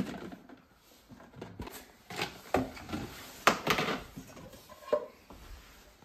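A metal cooking pot and spoon clattering: a handful of sharp knocks and scrapes, the loudest about three and a half seconds in.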